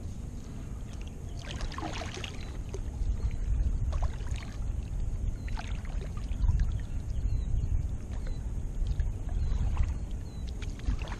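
Kayak paddle dipping and splashing in lake water, a few separate strokes, over a steady low rumble.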